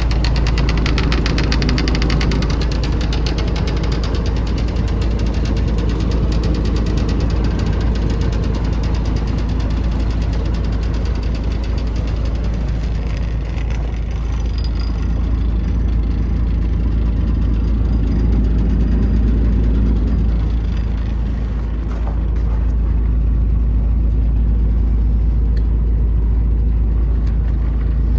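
Scania P124 truck's 12-litre six-cylinder diesel engine idling steadily, with a low rumble and fine regular clatter.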